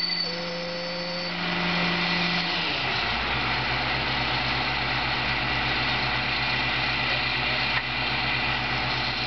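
Large crane's diesel engine running under load while it holds a suspended log cabin. A steady high whine stops about a second in, and about two and a half seconds in the engine note drops to a lower, pulsing run that holds steady.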